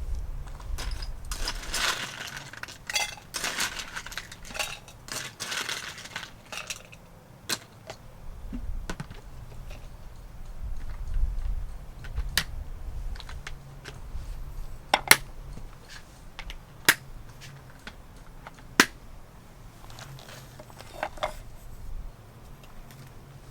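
Camping gear being handled: several seconds of rustling and crinkling, then a few separate sharp clinks about two seconds apart, like utensils or cookware being set down.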